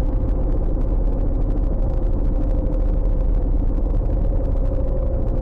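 Steady low rumble of a vehicle's engine and running noise, with a steady hum above it.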